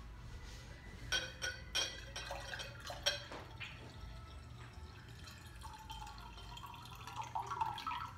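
Water poured from a glass pitcher into a drinking glass: a few clinks and splashes in the first few seconds, then a steady pour whose pitch rises as the glass fills.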